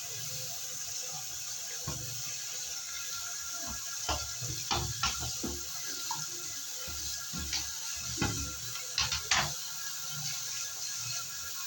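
Water running or spraying with a steady hiss while a window-type air conditioner is washed, with several short knocks and clatters about halfway through.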